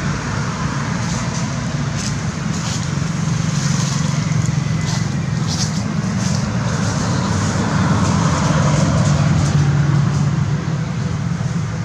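Steady low rumble and hiss of a motor vehicle engine running.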